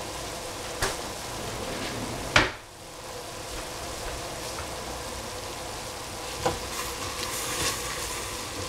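Shredded bean sprouts, cabbage and capsicum sizzling steadily in a stainless steel pot on the stove. A sharp knock comes about two and a half seconds in, with a few lighter clicks, and a wooden spoon starts stirring the vegetables near the end.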